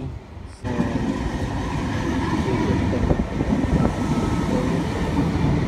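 Stainless-steel passenger train carriages running past close to the platform, a steady rumble of wheels on the rails with scattered clicks, starting suddenly a little over half a second in.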